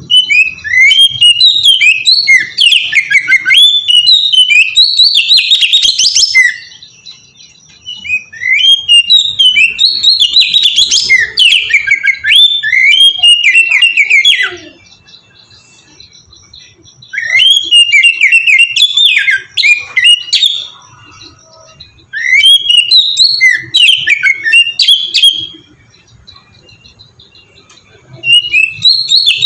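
Oriental magpie-robin (kacer) singing loudly in rapid, varied runs of whistles and chirps. There are four bouts of several seconds each, separated by short pauses, and a fifth starts near the end.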